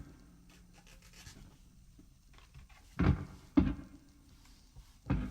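Faint scraping and rubbing, broken by three short, dull knocks: two close together about three seconds in and one near the end.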